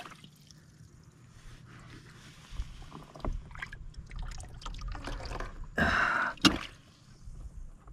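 Hand handling a fabric bag and its strap buckle on a kayak deck: soft rustles and scrapes, a short loud rush of noise about six seconds in, and a sharp click just after.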